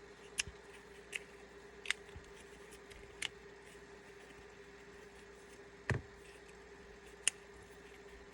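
Scattered sharp clicks and taps, about six in all, of small parts being handled as the bolt catch lever is worked out of a KWA Masada airsoft rifle's plastic lower receiver. A steady faint hum runs underneath.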